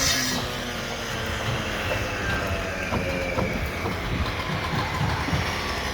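A motor vehicle running nearby on the street: a low, steady rumble with irregular low knocks and rattles.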